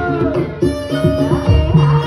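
Javanese jaranan gamelan music playing loud, with rapid drum strokes under held melodic tones.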